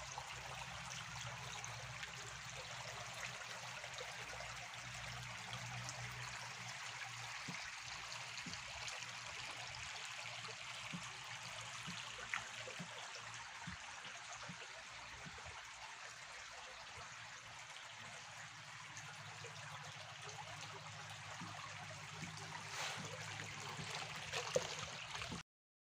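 Quiet, steady trickle of shallow water running over sand, with a faint low hum beneath. The sound cuts off suddenly near the end.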